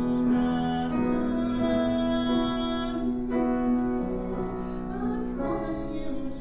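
Grand piano accompaniment to a musical-theatre duet. A voice holds one long note for about the first four seconds, and then the chords change.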